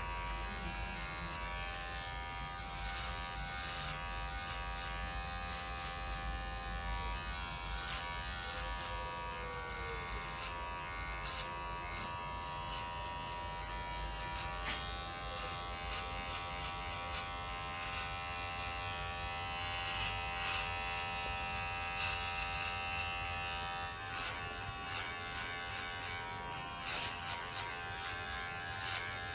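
Cordless electric hair clipper running with a steady buzz as its blade is worked against the head, cutting short hair in a fade.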